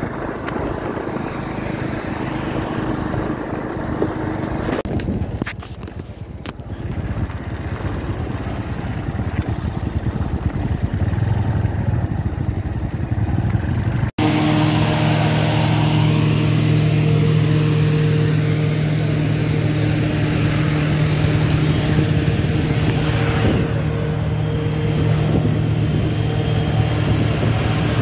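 Motorcycle engine running at a steady cruising speed under wind noise. After a cut about halfway through, a louder, very steady engine drone.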